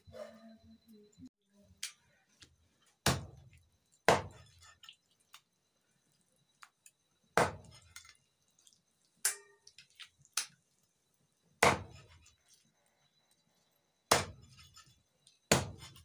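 A heavy chopping knife striking down through raw chicken into a wooden log chopping block: about eight separate chops, one to three seconds apart.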